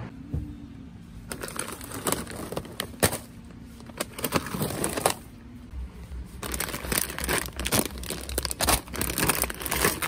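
Crinkly plastic snack bags being handled, a run of irregular crackles and rustles that starts about a second in.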